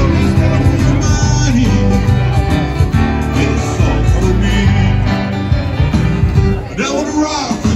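Live acoustic guitar strummed by a solo performer who sings into a microphone, amplified through a small PA speaker.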